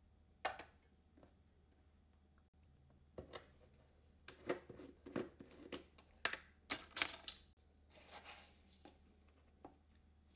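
Kitchen handling sounds: a stainless steel saucepan set down on a glass digital kitchen scale with a light knock about half a second in. Then a run of short clicks and scrapes as a plastic tub of dark brown sugar is handled and opened, loudest around the middle.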